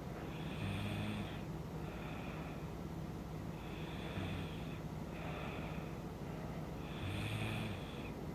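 A woman snoring in her sleep: slow, regular breaths about every three seconds, the heavier snores with a low rasp coming about a second in and near the end, softer breaths between.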